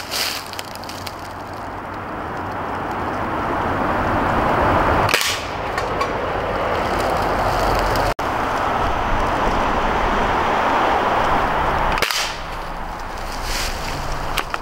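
Hatsan Striker .25 calibre break-barrel spring-piston air rifle firing, with sharp reports about five and twelve seconds in, over a steady rushing background noise.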